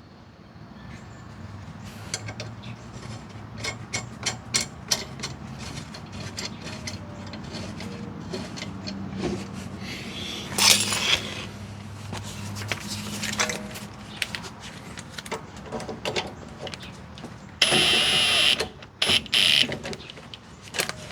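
Metal suspension parts and hand tools being handled and fitted: scattered light clicks, clinks and knocks over a steady low hum. Near the end there are two loud rushing noises, one after the other.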